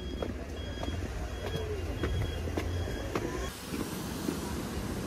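Footsteps on stairs against a steady traffic rumble, with a short high electronic beep repeating five times, about two-thirds of a second apart. The beeping and rumble stop about three and a half seconds in, giving way to the hiss of road traffic.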